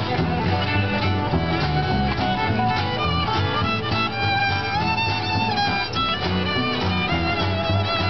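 Acoustic string band playing a tune: fiddle carrying the melody over strummed acoustic guitars and a plucked upright bass, the fiddle holding one long note midway.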